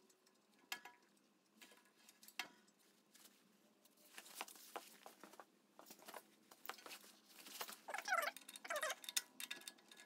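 Faint scattered clicks, taps and scrapes of metal parts and hand tools being handled, with a few short squeaky scrapes falling in pitch about eight seconds in.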